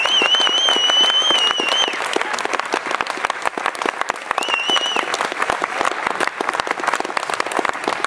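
Audience applauding steadily after a song ends. A shrill, wavering whistle rises over the clapping at the start and lasts about two seconds, then comes again briefly about four and a half seconds in.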